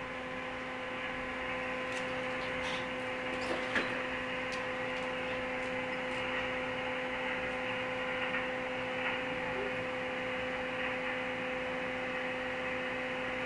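Two-way radio receiver putting out steady static hiss on an open channel with a constant hum under it. A few faint crackles come in the first few seconds. Nobody is transmitting while the operator waits for the other station to come back after switching channels.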